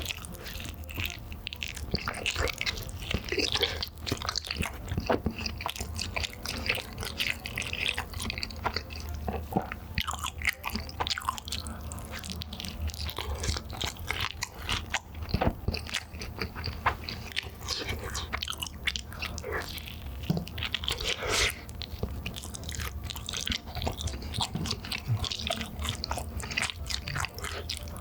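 Eating Chicago-style cheese meatball pizza: a steady run of bites, chewing and crunchy crust, many small irregular clicks and wet mouth noises.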